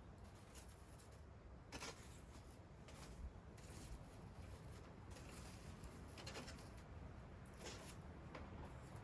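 Near silence: faint room tone with a few soft scratchy clicks and rustles.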